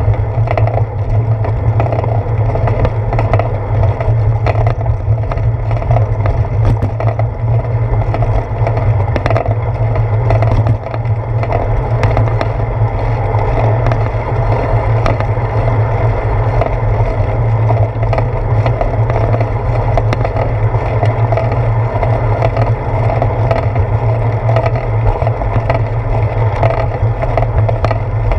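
Bicycle rolling along a wet paved path, heard through a seat-post-mounted GoPro: a steady loud rumble of road vibration with many small clicks and rattles.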